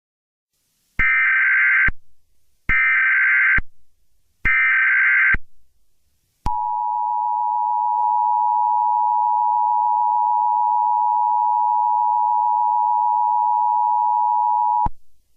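Emergency Alert System tones: three short, screeching bursts of SAME digital header data, each about a second long with short gaps between them. These are followed by the EAS attention signal, a steady two-tone 853 and 960 Hz alarm that holds for about eight seconds and cuts off sharply.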